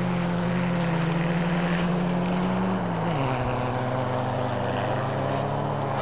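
A rally car's engine running hard at steady high revs as the car drives across the ice track; the revs drop about halfway through and then hold steady again.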